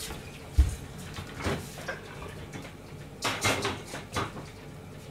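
Kitchen handling noises: a dull thump about half a second in, then a few scattered soft knocks and rustles as someone moves about the kitchen.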